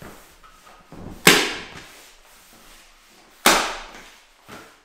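Hand staple gun firing twice, about two seconds apart, driving staples through a hardboard sheet into the timber floorboards beneath; each shot is a sharp snap that dies away over about half a second.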